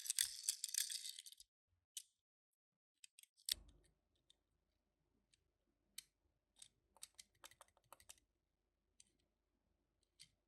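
Plastic packaging crinkling for about a second and a half, then scattered light clicks and taps as small die-cast toy cars and their packaging are handled.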